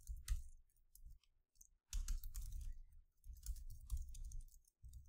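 Keystrokes on a computer keyboard, typed in quick bursts with short pauses between them.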